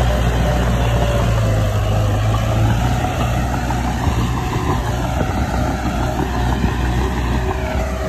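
Diesel engine of heavy earthmoving machinery running steadily, a low even rumble, its pitch dipping slightly near the end.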